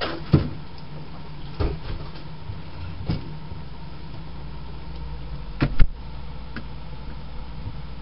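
Steady low refrigerator hum with several short knocks and clunks, the loudest pair about six seconds in.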